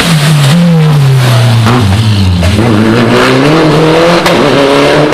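Rally car engine running hard, loud: its note falls for about two seconds, then climbs again as the car accelerates.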